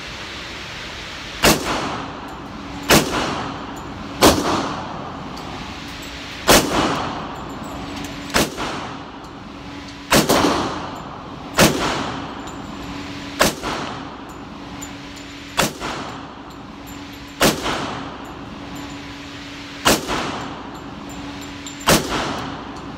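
.45 ACP semi-automatic pistol fired twelve times, single shots about one and a half to two seconds apart, each echoing briefly off the walls of an indoor shooting range. A steady low hum runs underneath.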